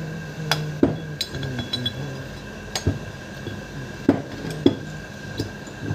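Metal parts of a dismantled car starter motor clinking and knocking as they are handled and fitted together: several separate sharp clicks, the loudest a little under a second in and twice around four seconds in.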